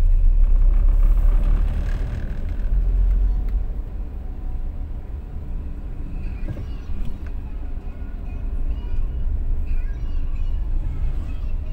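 Steady low rumble of engine and road noise heard inside the cabin of a moving car.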